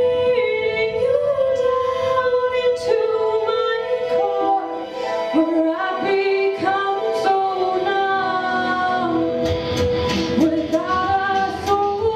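A woman singing solo into a handheld microphone over steady held accompaniment chords. The accompaniment grows fuller about nine and a half seconds in.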